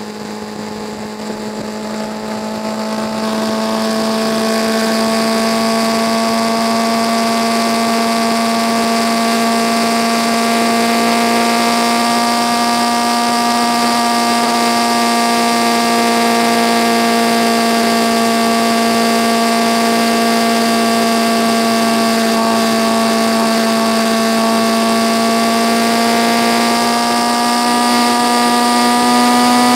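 Motorcycle engine holding a steady cruising note at highway speed, with wind and road rush, getting louder over the first few seconds and rising slightly in pitch near the end. The footage runs at double speed, so the engine note sounds higher and faster than in life.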